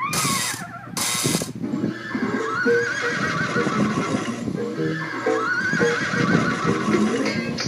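A horse whinnying: a quavering call that rises and then falls, heard twice, over a busy clattering.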